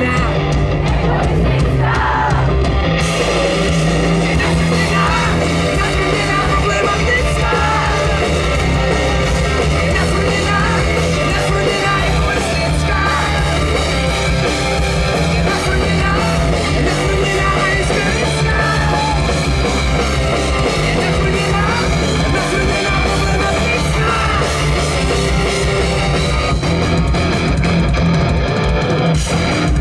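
Live rock band playing a song through a loud PA, heard from the crowd: drums, bass guitar and electric guitars, with wavering lead lines over a steady rhythm.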